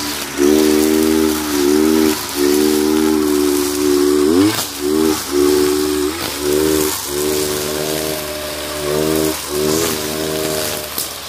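Kawasaki TJ45 brush cutter's two-stroke engine running at high revs while cutting grass, its pitch dipping and climbing back about once a second as the throttle is eased and reopened, over a steady high hiss from the cutting head slashing through grass.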